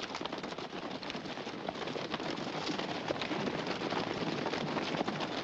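A group of horses galloping on dry, dusty ground: a dense, continuous clatter of many hoofbeats, growing a little louder toward the end.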